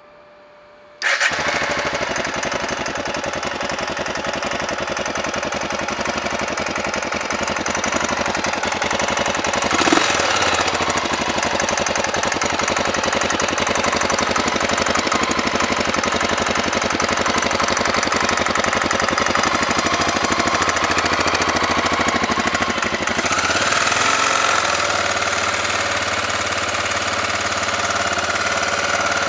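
Honda NX650 single-cylinder four-stroke engine running steadily, coming in suddenly about a second in, with a knock that the owner is asking about. The engine note shifts briefly near the middle and changes again later on.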